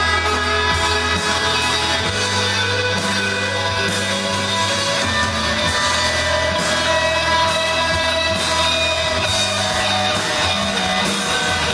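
Live rock band playing loud, with electric guitars over bass and drums and cymbal hits keeping time; a guitar note slides up and holds about six seconds in.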